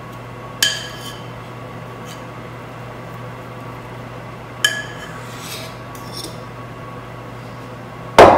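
A metal fork clinking and scraping against a mixing bowl as the remaining dough is worked out of it, with two short clinks that ring briefly. Near the end comes a loud clunk as the bowl is set down on the counter.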